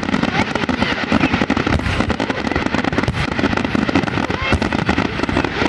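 Aerial fireworks going off in a rapid, continuous barrage of overlapping bangs, many per second and without a pause.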